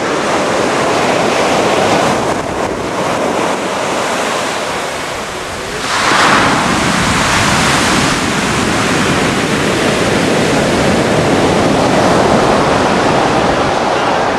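Rough surf breaking steadily on a sandy beach, with wind buffeting the microphone. A wave crashes loudest about six seconds in.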